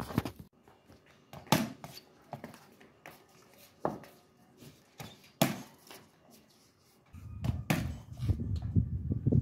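Sharp knocks of cricket practice: the bat striking the ball and the ball hitting the concrete floor and the cage, about half a dozen spread out, the loudest about one and a half seconds in and again near the middle. A low rumble comes in near the end.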